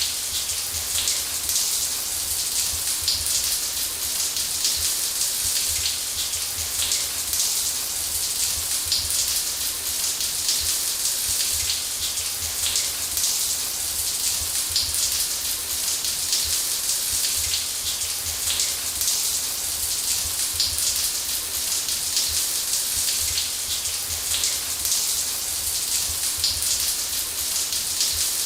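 Running shower: water spray pattering steadily onto a hard surface, a dense even hiss with fine spatters and a low rumble underneath.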